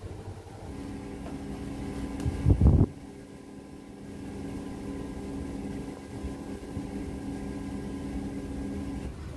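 A steady mechanical hum, with a brief loud low rumble about two and a half seconds in.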